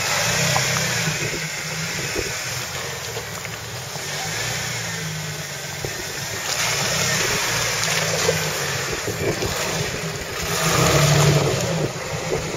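Jeep Wrangler TJ engine revving in repeated surges under load as it crawls through a muddy water hole, with the tyres churning mud and water; the loudest surge comes near the end as it drives out past.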